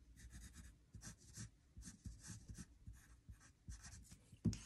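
Pencil lead scratching on paper in short, irregular strokes, faint, as a spout is sketched onto a drawing. A single louder tap comes near the end.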